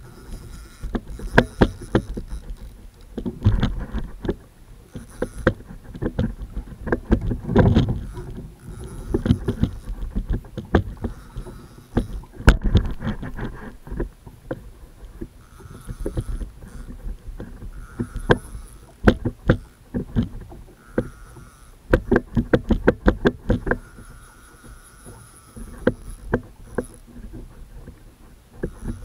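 Clusters of sharp knocks and clatter from a paddle and gear bumping a plastic sit-on-top kayak, over a low rumble of water and handling noise.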